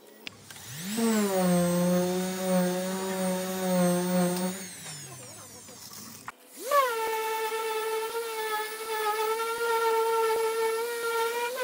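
Random orbital sander sanding body filler on a car bumper: a steady pitched whine that spins up about half a second in and winds down around five seconds. After a cut it runs again at a higher pitch until the end.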